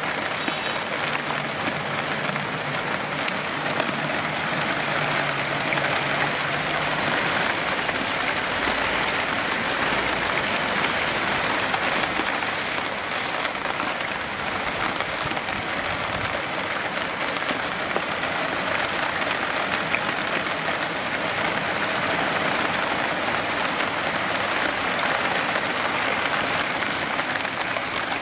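Steady rain falling on leaves and water, a dense, even hiss of many small drops.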